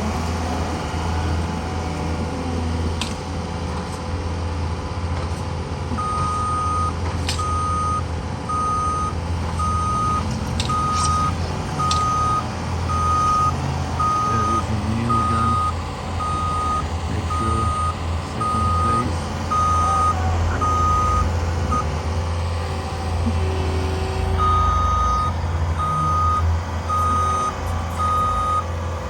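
Heavy construction equipment's engine running steadily, with a backup alarm beeping about once a second. The beeping starts several seconds in, pauses briefly, then resumes. A few sharp knocks are heard from the site.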